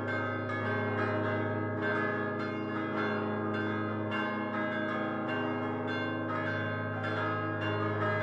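Fixed-hung church bells cast by Prospero Barigozzi in 1928, rung in a solemn peal by swinging their clappers by hand. Strokes come a few times a second, overlapping over a steady low hum from the largest bell.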